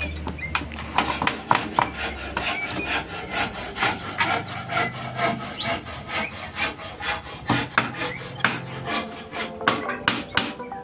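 Claw hammer knocking nails into the rough wooden slats of a crate lid: many sharp wooden knocks in quick succession.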